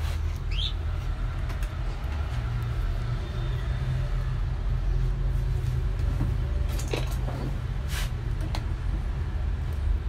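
Steady low rumble, with a short rising squeak about half a second in and a few light clicks later on, as a microwave oven's fuse is worked out of its holder.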